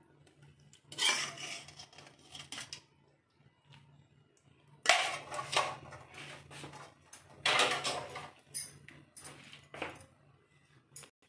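Kitchenware being handled on a table: a steel pot and glass dishware knocking and scraping in several short bursts of clatter, with a few sharp clinks near the end, over a steady low hum.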